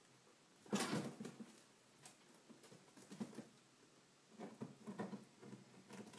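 Chinchillas scuffling in wood-shaving bedding: a burst of scrabbling about a second in, then scattered rustles and taps.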